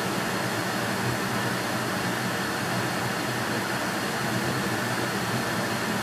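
Steady rush of hot air blowing out of a heater's outlet, with a low fan hum under it.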